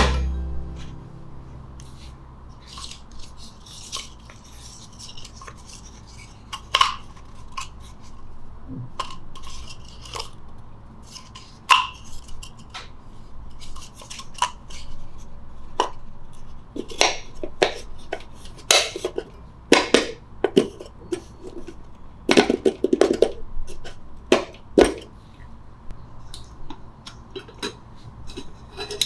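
Metal camping cookware and a wooden slat tabletop being handled and set onto a steel Stanley lunch box: scattered clinks and knocks, busiest and loudest past the middle.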